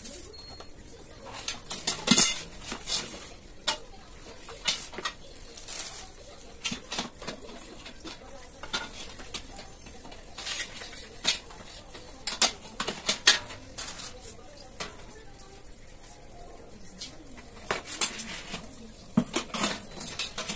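Steel frame bars and perforated mesh shelf panels of a metal shelving rack clinking and knocking against each other as they are handled and fitted together, in irregular sharp clicks and clanks.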